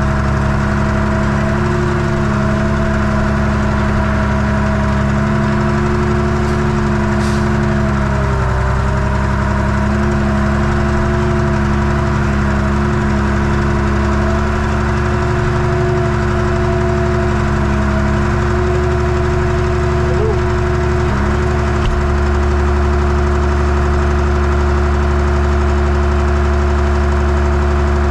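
Tractor engine running steadily at a constant speed, its pitch sagging briefly about eight seconds in before it recovers.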